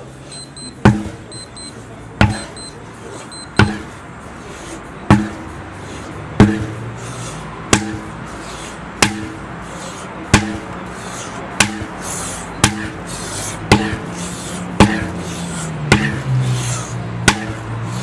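Repeated sledgehammer strikes, a single heavy blow about every 1.3 seconds, fourteen in all, over background music.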